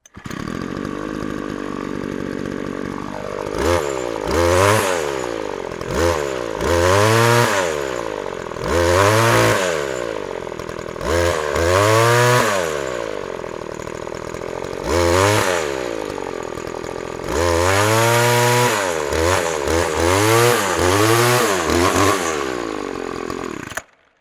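Petrol string trimmer engine running at idle, then revved up and let back down repeatedly, each burst rising and falling in pitch, before it is switched off and stops abruptly near the end.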